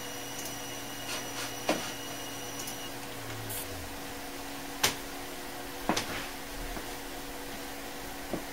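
Dell Optiplex 390 desktop computer running open on the bench with a steady fan hum; about three seconds in a faint high whine and a low hum cut off as the machine restarts, while the fan hum carries on. A few sharp clicks come at intervals.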